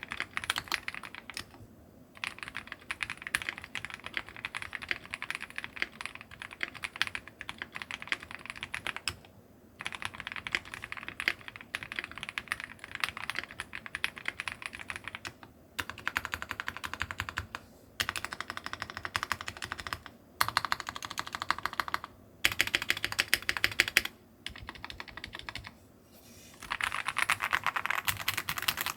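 Typing on a Meletrix Zoom TKL mechanical keyboard with a polycarbonate plate, Thicthock Marshmallow switches and GMK keycaps: quick runs of key clacks broken by short pauses. Some stretches come faster and denser, especially in the second half and near the end.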